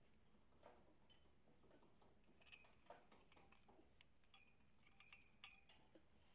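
Near silence with faint, scattered light metallic clicks and clinks: a hand tool being fitted to and turned on bolts on a diesel engine block.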